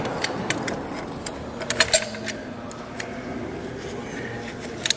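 Scattered light clicks and clinks of small tools or metal parts being handled, irregular and densest around the middle, over a faint steady background hum.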